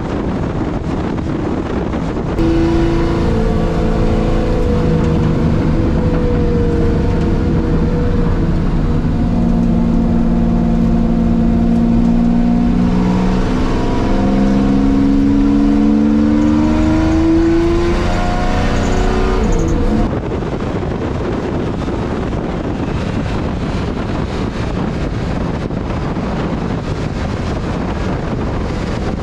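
Jaguar XJS racing V12 engine running hard at speed on track. For the first two seconds and the last nine, wind rushing over a bonnet-mounted camera largely covers the engine. In between, heard from inside the cabin, the engine note is louder and clearer, its pitch climbing steadily under acceleration before an abrupt cut back to the wind noise.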